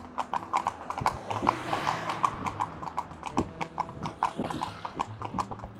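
Horse's hooves clip-clopping on asphalt in a quick, even rhythm as the horse is ridden along the pavement.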